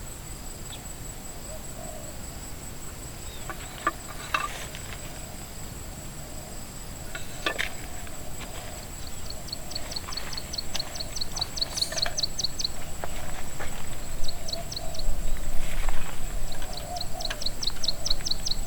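Outdoor night-creature ambience: a steady high insect drone, joined from about halfway by repeated rapid chirping trills, with a couple of sharp clicks early on.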